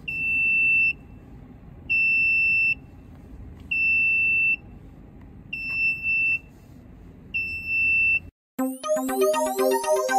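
Diesel generator control panel's alarm buzzer beeping: five long, high, steady beeps, about one every two seconds, sounding because the fuel has not been added. Near the end it cuts off and electronic music starts.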